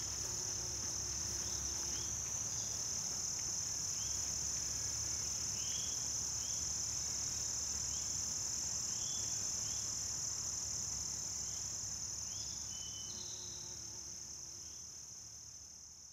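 Steady, high-pitched chorus of meadow insects, with short chirps scattered through it; it fades out near the end.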